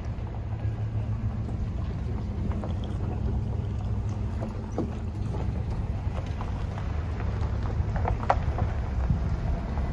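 Steady low drone of a vehicle engine running under way, with a few light knocks about eight seconds in.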